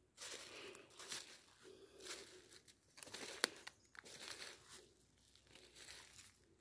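Footsteps crunching through dry fallen leaves on a forest floor, about one step a second, with one sharp crack about three and a half seconds in.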